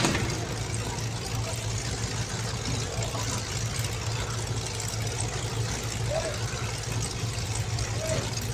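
Car engines idling in a low, steady drone.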